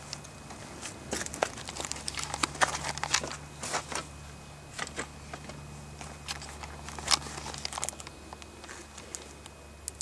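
Scattered, irregular crackles and clicks, thickest through the middle, over a faint steady low hum: handling noise as the camera is moved about.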